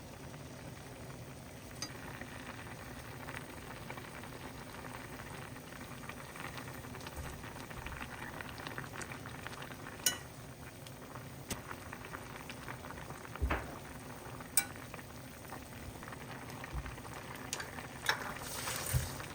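Food cooking on the stove, bubbling and sizzling steadily, with a few sharp clinks of a utensil against the pan, the loudest near the end.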